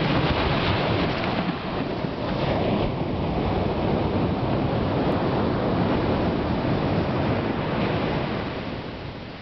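Ocean surf washing on a sandy beach, a steady rushing noise mixed with wind buffeting the microphone, easing off near the end.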